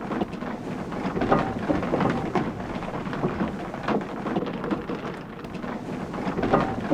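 Water-powered sawmill machinery running: a steady rumble with irregular knocks and rattles from the wooden gearing, pulleys and flat-belt drive.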